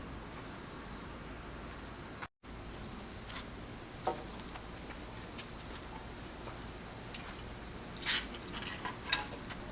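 Insects trilling steadily in one continuous high tone, with a few faint scattered clicks and knocks, the loudest about eight seconds in. The sound drops out completely for a moment a little over two seconds in.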